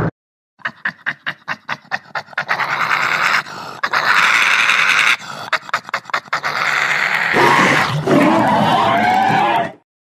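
Dog panting, a quick run of short breaths about six a second, going over into longer, harsher breathy pants. About seven and a half seconds in, a lower, rougher sound takes over, and it cuts off sharply near the end.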